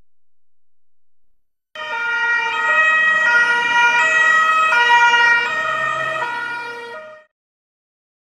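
Carabinieri patrol car's two-tone siren, switching back and forth between a higher and a lower note about every three quarters of a second. It starts suddenly about two seconds in and cuts off about five seconds later.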